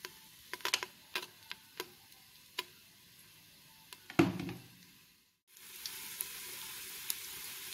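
Banana pieces deep-frying in hot oil: scattered crackles and pops over a faint sizzle, with one louder thump a little past four seconds in. After a brief gap, a steady, louder frying sizzle.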